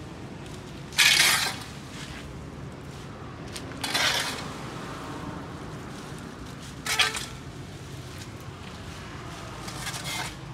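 A metal tool scraping a pavement in four short, sharp strokes about three seconds apart, each with a metallic clink.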